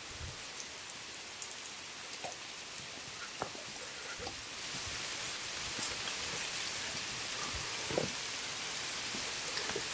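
Heavy rain falling, with scattered single drops ticking close by; the downpour grows heavier about halfway through.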